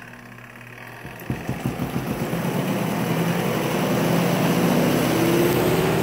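Spin-dryer side of a Costway twin-tub washing machine starting its spin cycle with a load of rinsed clothes: the motor hum builds steadily as the basket speeds up, with quick rattling from about a second in and a rising whine near the end.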